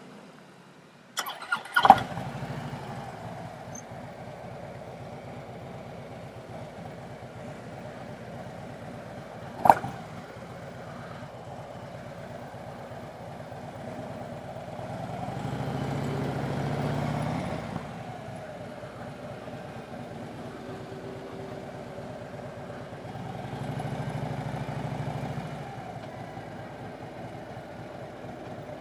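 Harley-Davidson motorcycle engine starting about two seconds in with a few sharp clicks and a loud catch, then running steadily. There is one sharp clunk near the middle, and the engine swells in loudness twice as it is ridden off.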